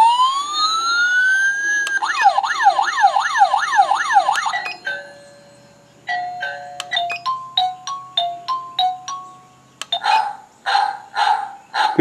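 HTZSAFE owl-shaped wireless alarm receiver playing through several of its selectable alarm tones: a rising swoop, then a fast up-and-down siren warble, then a short stepped chime melody, then a run of quick beeps about three a second.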